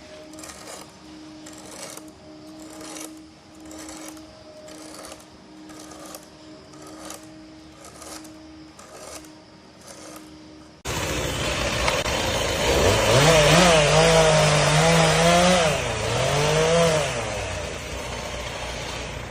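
Diamond-coated round file drawn across chainsaw cutter teeth in even strokes, a little under two a second. About eleven seconds in, a much louder chainsaw engine suddenly takes over, its pitch rising and falling as it revs.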